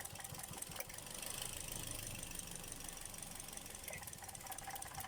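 Toyota Vios four-cylinder engine idling roughly with a steady fine ticking, misfiring because two of its ignition coils are dead.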